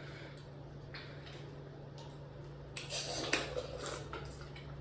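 Light clicks and clatter of tableware and a drink container being handled, with a short cluster of louder knocks and rustling about three seconds in, over a steady low hum.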